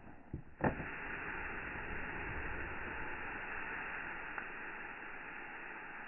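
A blast of air blowing ash and embers out of a clay oven: a couple of clicks, then a steady rush of air starting just under a second in.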